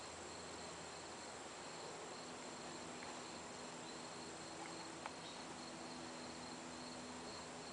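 Insects trilling steadily at a high pitch over a soft hiss, with a faint low hum coming in about two seconds in.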